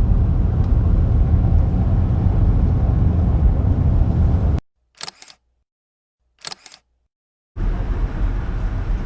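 Two camera-shutter clicks, each a quick double click, about a second and a half apart in a short stretch of dead silence. Before and after the silence there is a steady, loud low rumble that cuts off sharply and returns sharply.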